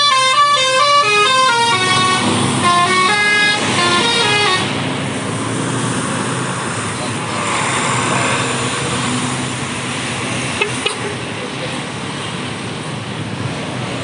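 Basuri multi-tone bus horn playing a quick melody of stepped notes, stopping about four and a half seconds in. A steady noisy rumble follows.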